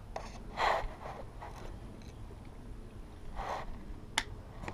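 A few short scuffs and rustles of a person moving on dry dirt with gear on, the loudest about half a second in, and a single sharp click near the end.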